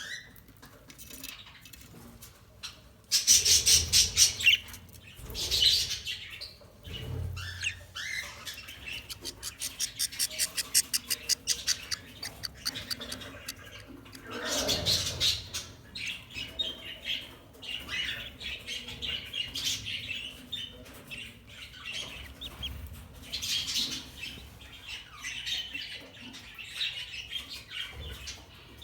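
Budgerigar chicks calling with high, rasping squawks and chirps, including a fast run of short chirps about ten seconds in.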